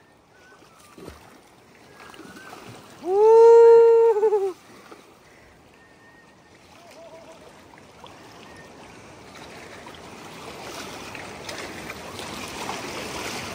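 Splashing, rushing river water around wading anglers, building louder over the last few seconds while a hooked sockeye salmon is fought. About three seconds in, a person lets out one long, loud, high-pitched shout lasting about a second and a half.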